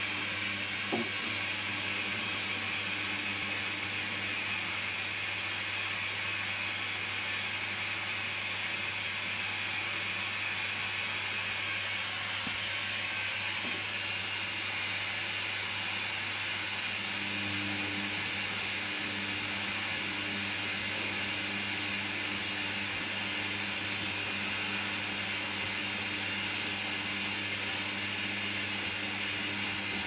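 Hoover Dynamic front-loading washing machine on its final rinse: the motor turns the drum of wet laundry with a steady hum and hiss. The motor hum grows stronger a little past halfway.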